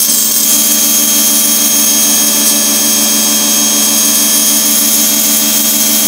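WAP EcoFit 2200 electric pressure washer running steadily under load. Its motor and pump hum beneath the loud hiss of water spraying from the fan nozzle.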